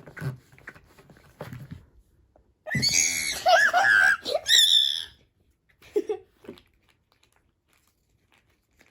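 A child's loud, high-pitched squeal lasting about two seconds, starting nearly three seconds in, with faint handling rustles before it.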